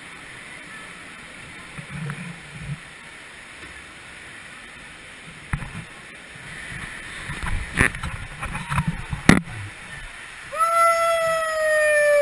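A few sharp knocks and thumps of climbing through a wooden play structure over a steady background din, then, about ten and a half seconds in, a child's long high-pitched yell, held and slowly falling in pitch, as the slide ride begins.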